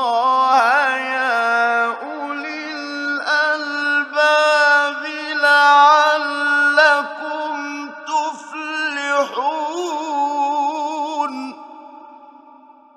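A male Quran reciter's voice in a long, melodic, ornamented phrase of tajwid recitation, its pitch turning and held on drawn-out vowels. The voice stops about eleven and a half seconds in and fades away near the end.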